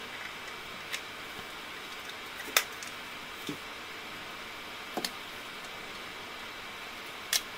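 Handling of a Nissan Qashqai J10's plastic tailgate handle trim strip: about five short, sharp plastic clicks and taps from the strip and its clips, the loudest about two and a half seconds in, over a steady low hiss.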